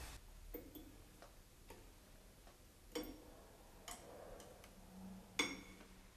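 Screwdriver tapping against a chrome basin mixer tap: about six small, faint, unevenly spaced clicks, the loudest near the end with a brief ring.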